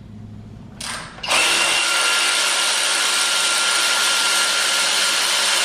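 Cordless electric ratchet running: a short blip about a second in, then a steady whir with a high whine for about four seconds, spinning a bolt out of the engine, stopping at the end.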